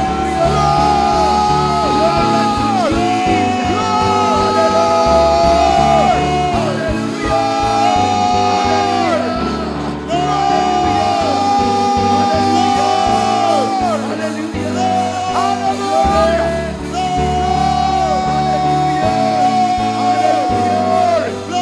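Live church praise band playing upbeat music, a bass line and drum beat under a held melody that slides between notes, with the congregation shouting and singing along.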